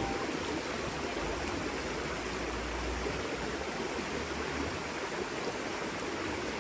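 Arroyo Seco river running over rocks: a steady rush of flowing water.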